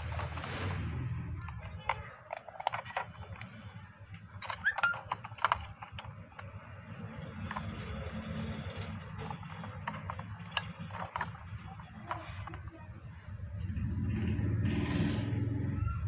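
Plastic clicks, knocks and rattles of a toy truck's chassis and battery pack being handled, as the battery plug is pushed into its connector; the loudest clicks come in a cluster about five seconds in. A low rumble runs underneath at the start and again near the end.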